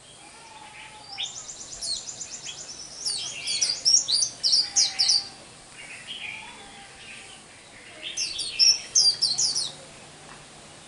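A young white-eye (khuyên) singing in two bouts of rapid, high-pitched twittering, the first from about a second in to five seconds and the second from about eight to ten seconds in. It sings the 'líu xù đầu' song pattern.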